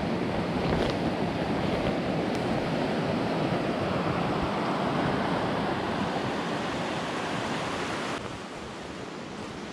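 Steady rush of a fast-flowing mountain creek running over rocks and small rapids, close by; about eight seconds in it suddenly drops to a quieter rush.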